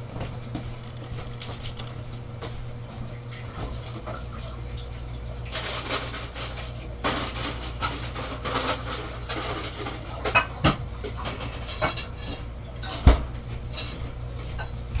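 Household clatter with scattered clicks and two sharp knocks, about ten and thirteen seconds in, over a steady low hum that swells about four seconds in.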